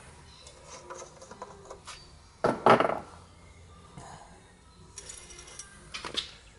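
Tools and hard parts knocking and clinking as someone works by hand in a van's engine bay, with one louder clatter about two and a half seconds in and a couple of sharp clicks near the end.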